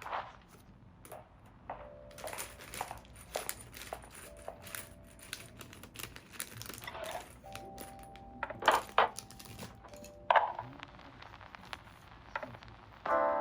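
Scattered clicks, knocks and rattles of small hard objects being handled, with a few brief squeaky tones among them.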